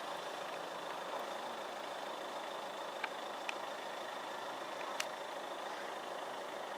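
Steady running noise of the approaching steam locomotive 45690, an LMS Jubilee class 4-6-0, with a few faint clicks.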